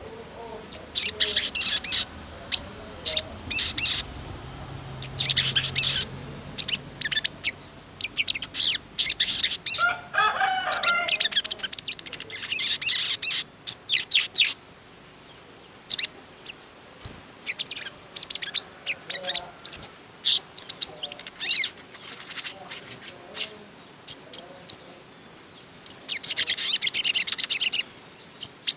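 Sogon songbird singing vigorously: bursts of rapid high chirps and trills, with a lower warbling phrase about ten seconds in and a dense trill near the end.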